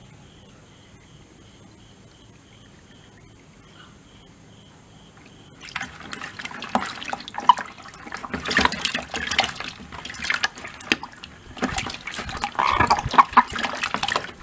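Shallow water splashing and sloshing in a plastic bucket crowded with toads, starting suddenly about five and a half seconds in and going on in loud, irregular bursts.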